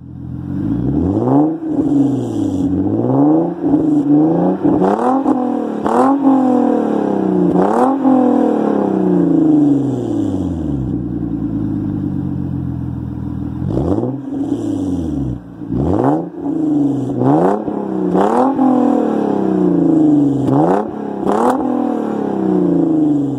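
Hyundai Genesis 3.8-litre V6 through a Solo Performance cat-back exhaust, revved again and again: a string of quick blips, then one longer rev that dies away slowly, then more quick blips. Several of the rev peaks carry a short sharp crack.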